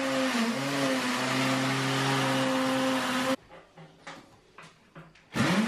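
Cordless drill boring into the wall, its motor spinning up and then running at a steady pitch under load. It stops about three and a half seconds in, a few faint knocks follow, and it spins up again near the end.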